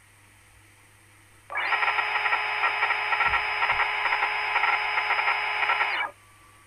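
Simulated milling-cut sound effect from the SwanSoft CNC simulator as its end mill cuts the workpiece: a steady, dense grinding noise that starts abruptly about one and a half seconds in and cuts off suddenly about six seconds in.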